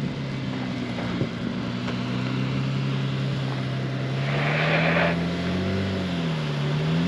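Honda Ridgeline's V6 engine pulling at low revs in four-wheel drive, its pitch rising, dipping and rising again near the end as the throttle is worked. A brief hiss sounds just past halfway.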